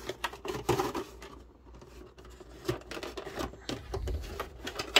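Plastic packaging being handled: irregular light clicks and crinkles as cards are worked out of a clear plastic insert in a plastic tray, with a denser rustle about half a second in.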